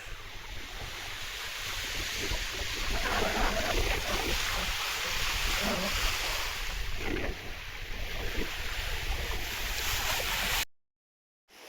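Sea rushing past a sailing yacht's hull under sail, with wind blowing on the microphone in a 15 to 18 knot breeze. The sound is a steady hiss over a low rumble and cuts off suddenly near the end.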